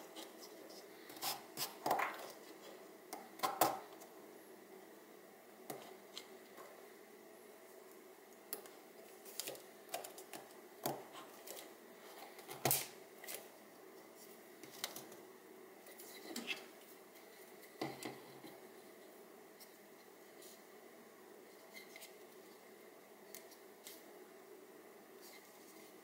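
Hard 3D-printed plastic mounts clicking, tapping and scraping as they are pushed on and handled around a can-skinned catch can body, with irregular sharp clicks that thin out in the last third.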